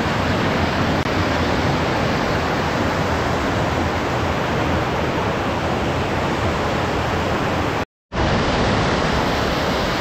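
Mountain stream rushing over rocks: a steady, loud hiss of water that cuts out for a split second about eight seconds in.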